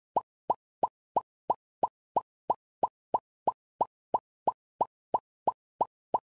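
A cartoon-style pop sound effect repeated at an even pace, about three short pops a second with silence between them.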